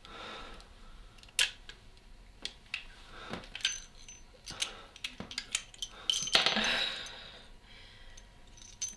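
Scattered small metallic clicks and clinks of a revolver being handled: cylinder and cartridges being worked by hand, with one sharper click about a second and a half in. A longer soft rustle comes about six seconds in.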